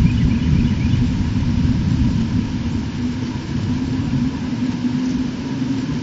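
Steady low rumble with a faint constant hum, picked up by the nest camera's microphone.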